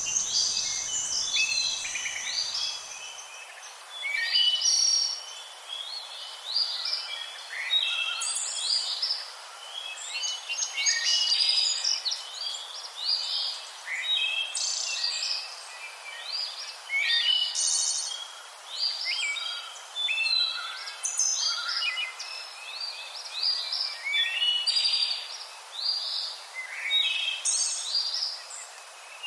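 Parrots chirping: a rapid, continual series of short, high-pitched calls, many sliding quickly up or down in pitch.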